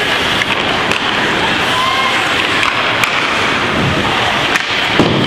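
Ice hockey rink sound: skates scraping on the ice with several sharp clacks of sticks and puck, the last about five seconds in the loudest, over a background of spectators' voices.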